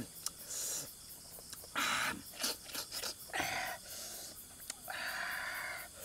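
A person eating a peeled bamboo shoot close to the microphone: biting and chewing, heard as a run of short crisp, breathy bursts with small mouth clicks between them.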